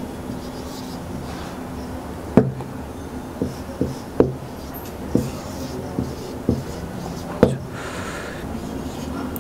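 Marker writing on a whiteboard: faint scratchy strokes and a series of sharp taps as the marker tip strikes the board. A steady low hum runs underneath.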